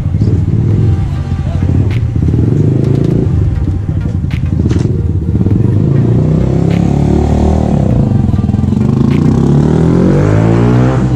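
Motorcycle engine running with a loud, steady rumble, rising in pitch near the end as it is revved, with a few sharp clicks.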